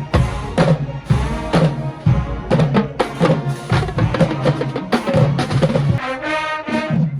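Marching band playing: a steady run of drum hits with pitched horn-like tones over them, and sustained chords near the end.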